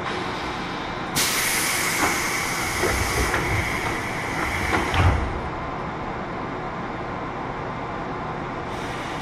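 Compressed air hissing out of a JR 201 series electric train's air system, starting suddenly about a second in with a faint whistle in it and a few knocks, and stopping after about four seconds over the train's steady low noise. A second hiss of air starts near the end.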